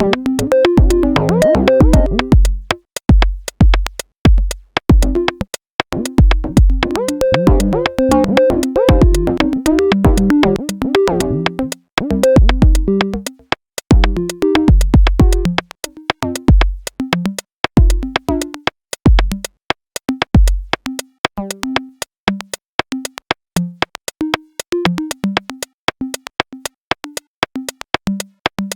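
VCV Rack software modular synth patch playing electronic music. The Quad Deviant module's random outputs are quantized into synth notes over a drum-machine kick and fast ticking clicks. The kick drops out about two-thirds of the way through, leaving short synth blips and ticks.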